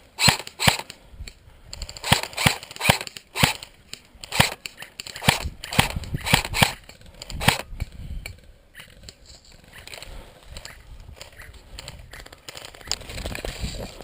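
Airsoft electric rifle firing single shots, sharp cracks roughly every half second, about a dozen of them, then the firing stops about eight seconds in.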